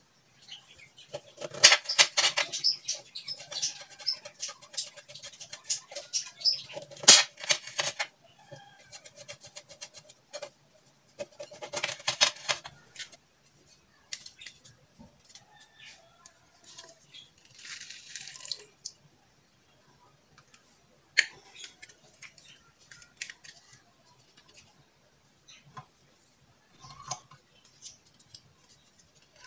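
Small lemons being halved with a knife on a cutting board, the blade knocking and scraping through the peel and onto the board, in the first half. After that a red plastic hand-held lemon squeezer is clicked and pressed on the halves, giving scattered clicks and a short squirt of juice.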